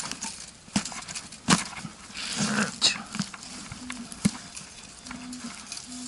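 Digging at a metal-detector target in forest soil: sharp knocks of the tool in the ground, the loudest about a second and a half in, and a scraping rustle of earth. In the second half come short, steady, low beeps from the metal detector.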